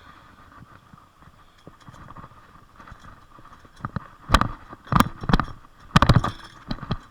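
BMX bike jolting and clattering while ridden: a quiet stretch, then a cluster of loud knocks and rattles about four seconds in, dying away near the end.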